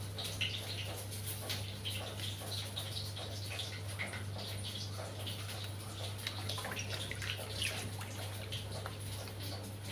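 Hands swishing and lifting bunches of red spinach leaves in a plastic basin of water, with irregular splashing and water dripping back into the basin. A steady low hum runs underneath.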